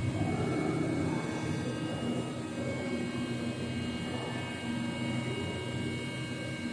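Steady machinery hum with several faint, steady high whining tones over it.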